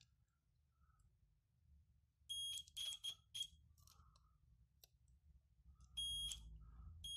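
Digital multimeter's continuity beeper sounding in short high beeps, several in quick succession about two to three and a half seconds in, then one longer beep about six seconds in. Each beep marks a cassette-deck key switch closing its contacts as its key is pressed, showing the switch conducts.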